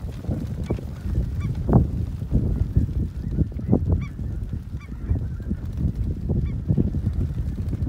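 Snow geese calling: short, high honks scattered throughout, over wind buffeting the microphone.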